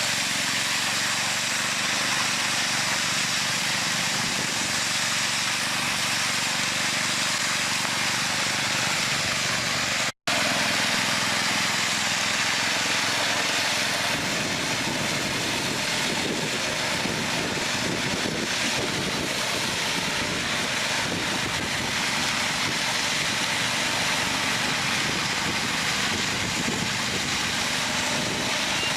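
Steady engine and machinery noise from construction equipment, cut off for a split second by a brief dropout about ten seconds in.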